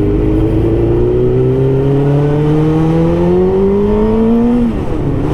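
Suzuki GSX1000 K2 sportbike's inline-four engine pulling under acceleration, its pitch rising steadily for about four and a half seconds, then falling sharply near the end.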